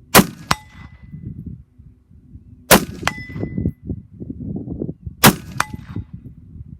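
Three AR-15 rifle shots about two and a half seconds apart. A fraction of a second after each shot comes the clang of the bullet striking a steel target at 100 yards, which rings briefly: a hit.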